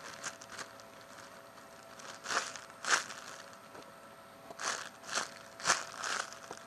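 Short crinkling and crackling handling noises as a bread-shaped squishy toy is turned over in the hands: a handful of brief rustles in the second half.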